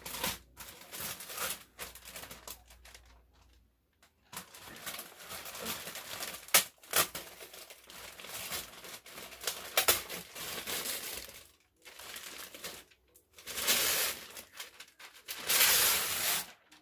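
Packaging crinkling and tearing as a gift mirror is unwrapped, in irregular rustling bursts with a short pause about four seconds in, loudest near the end.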